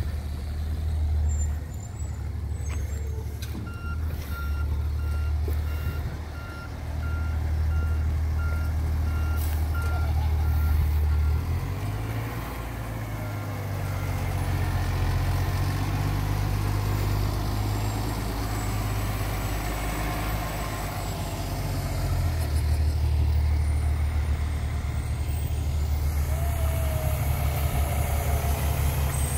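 Fire engine's diesel engine running heavily while its reversing alarm beeps steadily for about ten seconds. Near the end a second fire apparatus's engine joins in.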